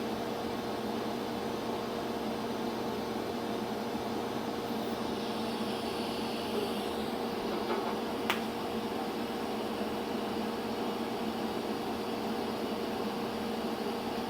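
TIG welding arc on a steel fitting and sheet-steel oil pan: a steady hiss with a low, even hum, with one sharp tick about eight seconds in.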